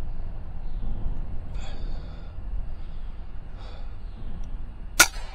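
A single sharp shot from a suppressed FX Impact M3 .25-calibre PCP air rifle near the end, over a steady low rumble.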